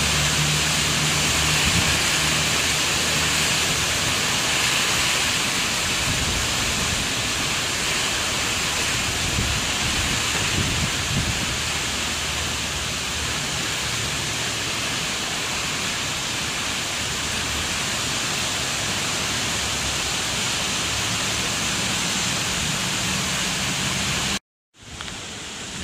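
Heavy rain pouring steadily, with a low engine hum from the train at the platform underneath, strongest in the first couple of seconds. Near the end the sound cuts out abruptly for a moment and comes back as lighter rain.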